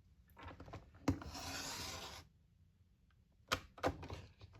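Paper trimmer's blade housing clicked down and slid along its rail, slicing a sheet of paper in one stroke of about a second, followed by a few light clicks and taps near the end.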